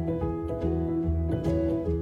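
Background instrumental music with plucked-string notes over held low tones.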